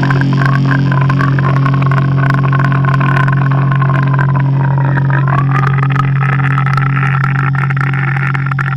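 Loud, sustained distorted drone from a goregrind recording: a held low note with a wavering higher tone above it.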